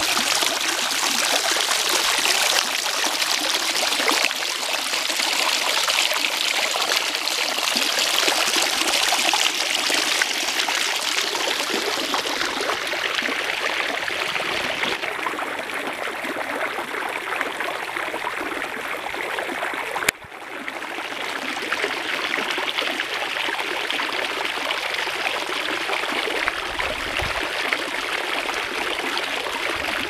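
Water from a three-tier garden fountain splashing and trickling steadily down into its basins, with a brief break about two-thirds of the way through.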